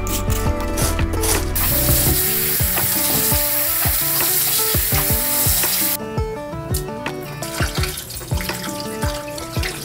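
A few knife strokes shredding red cabbage on a cutting board, then a kitchen tap running into a stainless steel bowl of shredded cabbage as it is rinsed by hand: a steady hiss that starts about a second and a half in and stops about six seconds in. Background music throughout.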